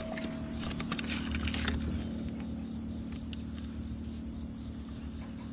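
Night insects trilling steadily over a low, steady hum, with a few light clicks from handling a spinning rod and reel in the first couple of seconds.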